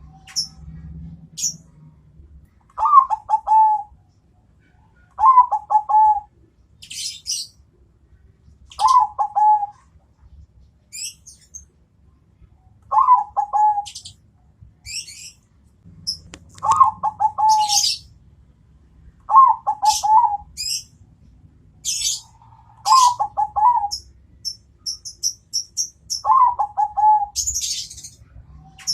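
Zebra dove (perkutut bangkok) cooing: about eight short, rolling, pitched phrases repeated every few seconds. Thin, high chirps of small birds sound in between.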